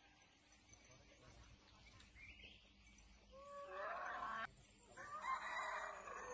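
Two rooster crows, the first cut off abruptly about four and a half seconds in, the second following about half a second later.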